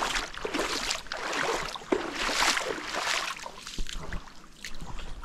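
Small waves washing in at the water's edge, the rush of water swelling and fading in a few surges, with one sharp click about two seconds in.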